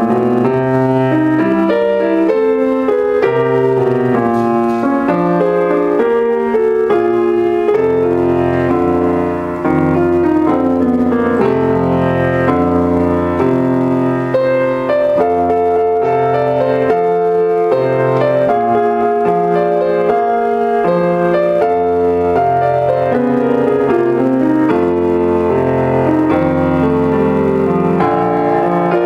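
Solo grand piano being played: a busy melody over long-held low bass notes that change about every second or two.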